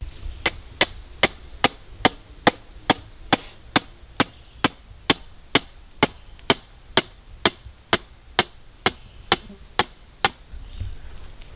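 Hammer striking the top of a thin metal rod again and again, driving it into the ground as the grounding rod for a solar electric-fence energizer. Sharp, even metallic strikes, about two a second, stopping shortly before the end.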